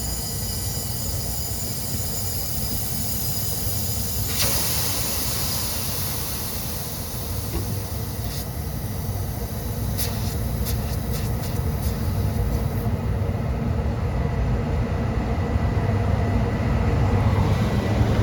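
Pressurised nitrogen hissing as it blows flushing solvent and contaminants out of an air-conditioning refrigerant line, over a low rumble. The hiss surges about four seconds in, and its high part fades out about two thirds of the way through, leaving the rumble.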